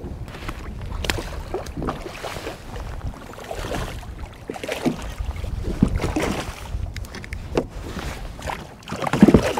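Choppy water slapping and splashing against a plastic kayak's hull, with wind rumbling on the microphone and scattered knocks from the boat, and a louder thump near the end.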